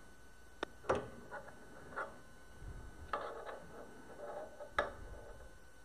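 Scattered clicks and light knocks of small tools and parts being handled and set down as an AR-15 receiver is levelled in vise blocks, with some rubbing between them. The sharpest knocks come about a second in and near the end.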